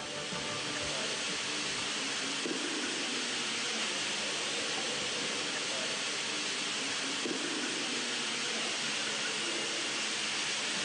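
Ride-on floor scrubber running over a wet floor, with a steady hiss from its scrubbing brush and vacuum squeegee.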